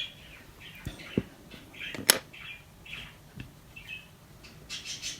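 Faint handling sounds of polymer clay and sculpting tools being worked: soft taps, short high squeaky chirps, and one sharp click about two seconds in.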